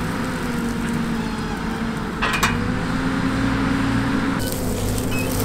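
Diesel engine of an Ahlmann wheel loader running steadily, its pitch rising slightly just before halfway as it works, with a short clatter a little over two seconds in.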